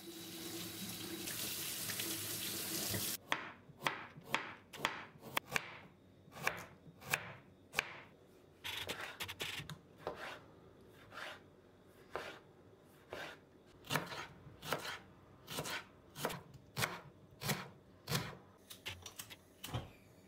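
Kitchen tap running briefly, then a knife slicing a tomato and knocking on a wooden cutting board, about two cuts a second.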